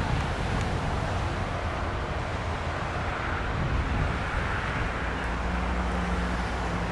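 Car driving: steady road and engine noise, with a low, even engine hum settling in about five seconds in.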